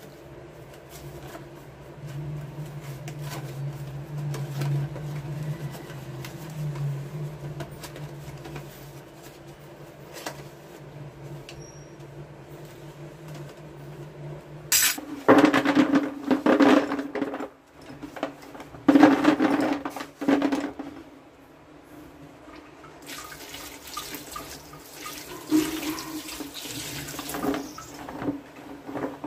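Cardboard chalk box and sticks handled softly over a low steady hum, then two loud rushing bursts of about two seconds each and a gentler swishing afterwards: water poured into a plastic tub of chalk sticks to soak them.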